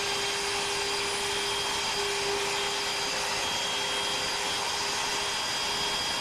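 Trim-router spindle of a benchtop CNC router running steadily with a constant whine. The bit spins clear of the wood on a first pass above the pocket rather than cutting.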